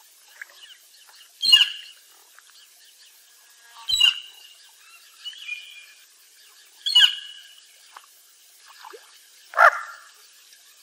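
Bufflehead duck calling: four loud, short calls about two and a half to three seconds apart, with fainter calls in between.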